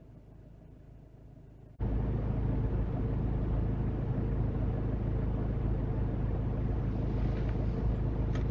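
A stationary car's engine idling, heard from inside the cabin through a dash camera's microphone: a steady low hum, faint at first and much louder from about two seconds in, with a short click near the end.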